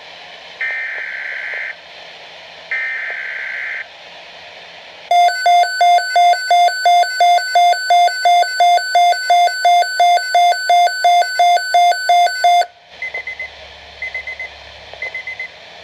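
Weather alert radio receiving a Weatheradio Canada warning. Two one-second bursts of digital SAME alert-header data come first, then the radio's alarm beeps loudly about three times a second for some seven seconds and cuts off. Short, faint data chirps follow.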